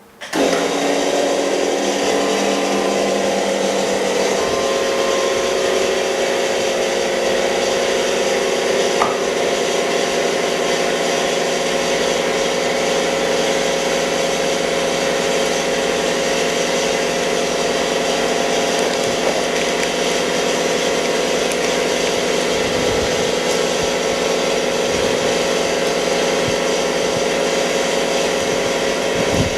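An electric machine switches on abruptly and runs steadily, a loud even hum and hiss with several held tones, like a motor or pump working.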